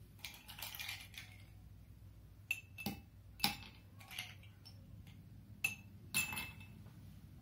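Ice cubes dropped into a glass tumbler, with several sharp clinks of ice against glass, after ice shuffling in a ceramic mug in the first second or so.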